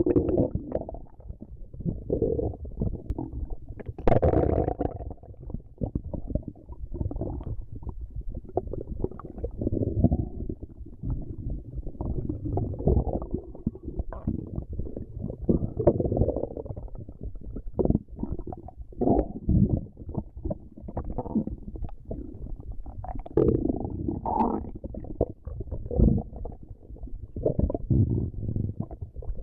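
Stomach growling: low, irregular rumbles one after another without a break, the loudest and sharpest about four seconds in.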